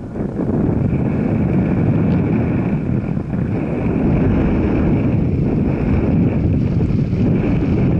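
Steady rumble of a moving vehicle, with wind buffeting the microphone.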